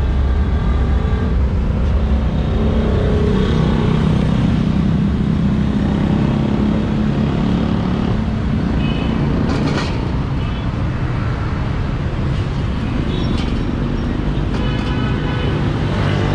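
Steady low rumble of busy road traffic passing close by, with voices talking at times.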